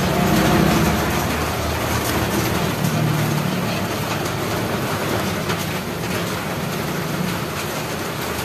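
A metal ladle stirring and scraping a thick, bubbling kalamay mixture in an aluminium wok over a lit gas burner, with a steady rushing noise underneath.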